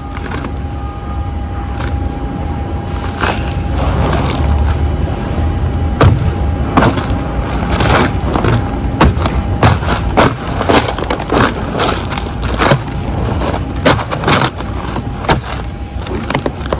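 A low rumble with many sharp knocks and clanks, irregular and frequent, and a thin steady tone held through about the first half.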